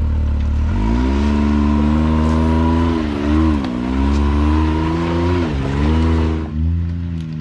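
Side-by-side UTV engine revving up about a second in and holding high revs as it works up a rock ledge, dipping briefly twice, then falling back near the end. A steady high whine runs alongside the engine until it falls.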